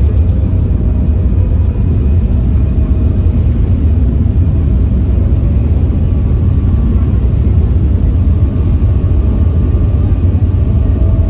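Passenger ferry's engine running with a steady, deep rumble and a few faint steady tones above it.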